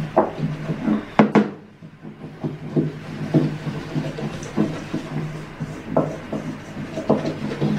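Wire whisk scraping and clicking against a stainless steel mixing bowl in quick, irregular strokes as flour and egg are mixed, with two sharper knocks about a second in.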